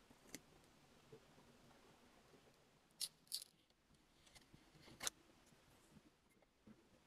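Quiet handling of paper and plastic film: a few short, sharp crackles, two close together about three seconds in and a louder one about five seconds in.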